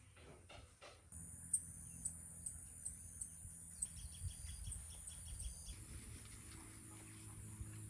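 Faint countryside ambience: a steady high insect trill with short chirps repeating roughly twice a second, over a low rumble. It steps up about a second in.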